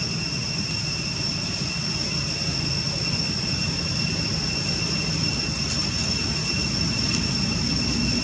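Steady outdoor background: a continuous high-pitched drone over a low rumble, with no distinct event standing out.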